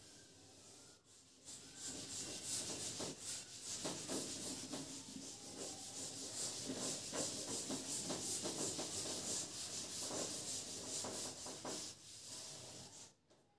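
Quick scratchy rubbing strokes on a teaching board, in a dense run that starts a second or so in and stops shortly before the end.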